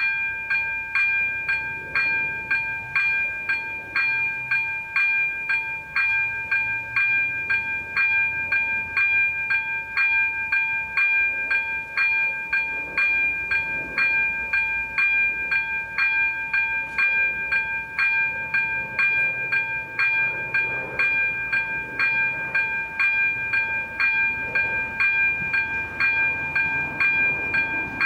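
Level-crossing warning bell on AŽD 97 crossing lights, ringing steadily at about two strikes a second, each strike sustaining a bright tone. The ringing means the crossing is closed with a train approaching.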